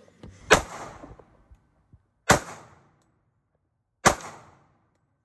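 Three handgun shots fired one at a time, evenly spaced about a second and three-quarters apart, each a sharp crack followed by a short fading echo.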